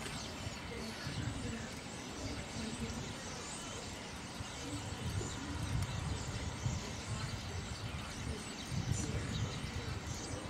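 A flock of a few hundred common starlings chattering together at a tree roost: a dense, continuous mass of whistles, clicks and chirps, over a low rumble.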